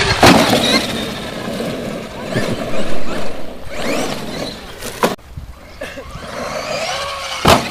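Radio-controlled car's motor whining up and down in pitch as the car speeds up and slows, over the noise of its tyres on dirt, with a sharp click about five seconds in and another near the end.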